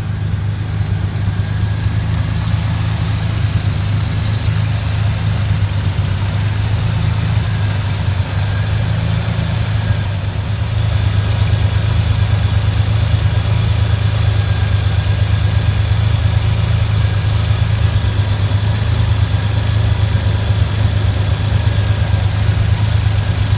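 Ford Ranger engine idling with a misfire caused by a worn spark plug wire leaking spark; a steady low hum with rapid sharp ticks over it, growing a little louder and denser about halfway through.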